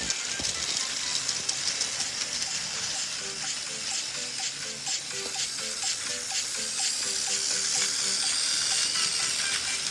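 Battery-powered toy train engine running along plastic track, its small motor and wheels giving a steady, fine whirring rattle. Quiet music with a simple melody plays underneath.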